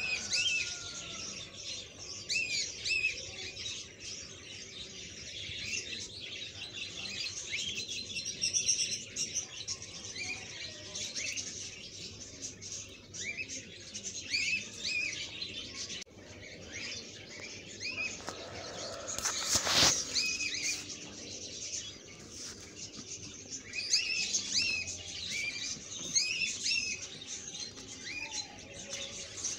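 Small birds chirping over and over in the background, short high calls throughout. About two-thirds of the way through comes one brief, loud rush of noise.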